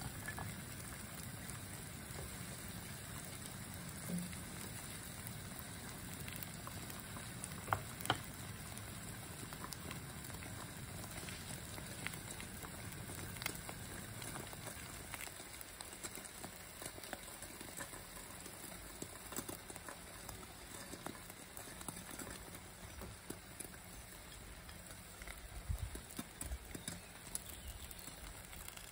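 Egg and mushroom omelette sizzling softly in a frying pan over a portable gas stove, a steady crackle with scattered light pops and ticks. A few soft knocks come near the end.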